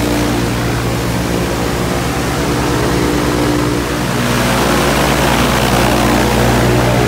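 Viking aircraft engine running steadily on the ground, turning the propeller of a Rans S-12, with the alternator switched off so it runs on the battery alone during an endurance test. A rush of air grows louder from about four seconds in.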